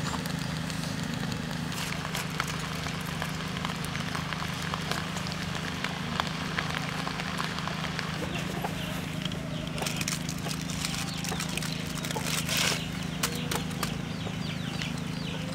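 Wood and charcoal fire crackling under foil-wrapped food on a wire grill rack, with scattered sharp pops over a steady low hum.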